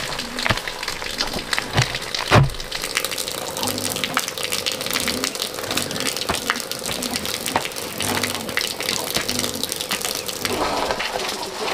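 Water running and splashing, with scattered clicks and knocks and one heavy thump about two seconds in.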